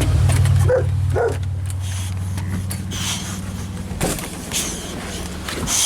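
A steady low engine hum that cuts off near the end, with two short dog barks about a second in.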